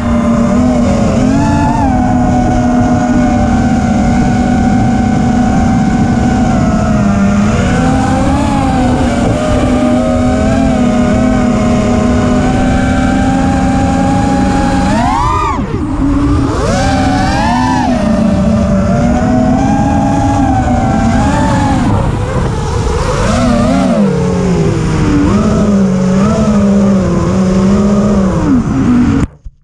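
Brushless motors and propellers of an Armattan Rooster FPV freestyle quadcopter whining in flight, picked up by its onboard camera. The pitch rises and falls as the throttle changes through rolls and flips, with a sharp swing about halfway through, over a rush of wind on the microphone. The sound cuts off suddenly near the end.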